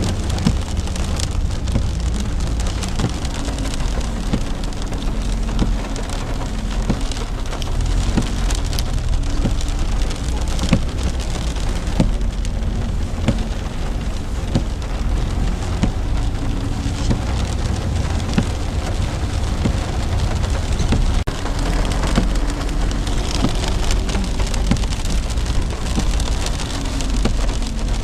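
Steady rain falling, with many small drop ticks over a constant low rumble.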